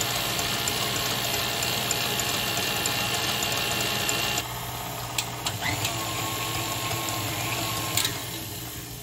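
Planetary stand mixer running at mid speed, its wire whisk beating fresh cream and sugar into chantilly in a stainless steel bowl: a steady mechanical whir. About four and a half seconds in the sound drops, a few clicks follow, and it quietens further near the end as the cream reaches the whipped-cream stage.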